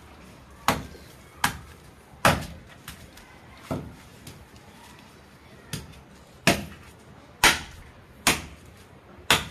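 Machete blade chopping into a coconut's fibrous husk to strip it: a series of sharp knocks, about nine strikes roughly a second apart, with a short pause midway.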